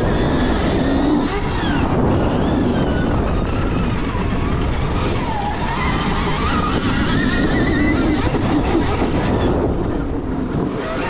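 Stark VARG electric dirt bike's motor whining, its pitch rising and falling every second or two with the throttle, over heavy wind rush on a helmet chin-mounted microphone.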